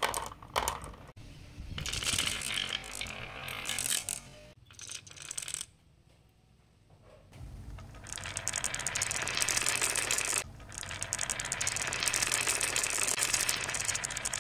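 Marbles dropping and clattering into a plastic toy dump-truck bed, then, after a brief lull, a stream of marbles rolling down a wooden wavy HABA slope, their many quick clicks against the wood and each other merging into a continuous rattle.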